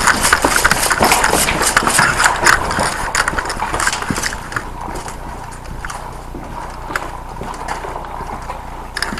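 Hurried footsteps on a hard floor with gear rattling, fast and loud for about four seconds, then easing off to quieter steps and a few single clicks.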